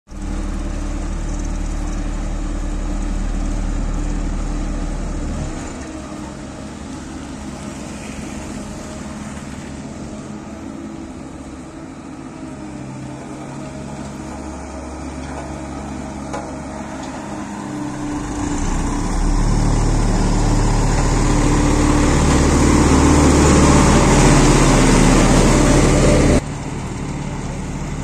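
Diesel engine of a Hamm tandem drum road roller running steadily with a deep hum, as it compacts fresh asphalt. It eases off after about five seconds, grows louder again in the second half, and cuts off abruptly near the end.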